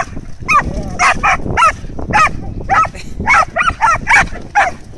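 A dog barking excitedly in play: a rapid run of short, high barks, about three a second, each falling in pitch.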